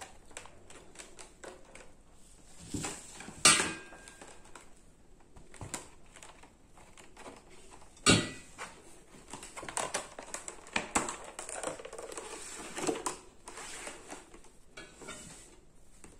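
Clicks, crackles and knocks of a thin clear plastic acetate egg mould being handled and pressed, with two louder knocks about three and a half and eight seconds in, the second as a glass baking dish is moved.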